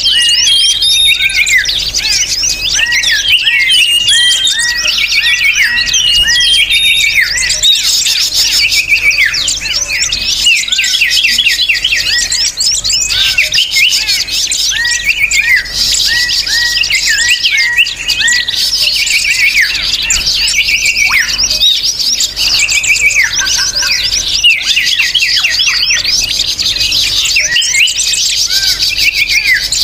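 Bird-lure recording of many small songbirds chirping and twittering at once: a dense, continuous chatter of rapid, overlapping short notes.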